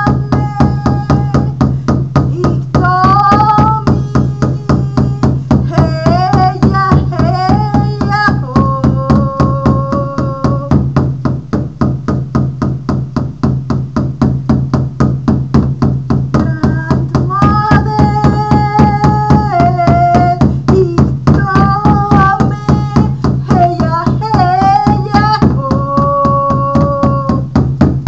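Frame drum struck with a beater in a steady, even beat, with a woman's voice chanting sung phrases over it; the drum carries on alone for several seconds in the middle.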